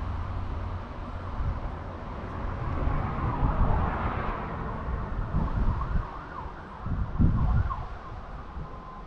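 New Holland T7.210's 6.7-litre six-cylinder diesel engine running, its low rumble swelling and easing, with a whine over it that glides up and down in pitch.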